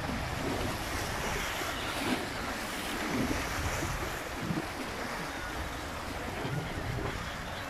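Choppy sea waves breaking and splashing against a rocky shore, with steady wind buffeting the microphone.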